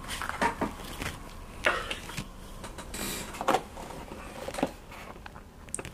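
Handling noise from a cardboard and clear-plastic action figure window box: scattered light clicks, taps and plastic crackles as it is gripped and turned, with a brief rustle about three seconds in.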